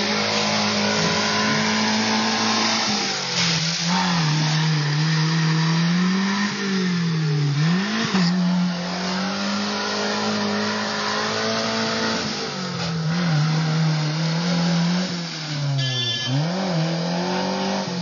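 An off-road 4x4's engine revving hard and held at high revs, dropping and climbing again several times as the vehicle labours through deep mud.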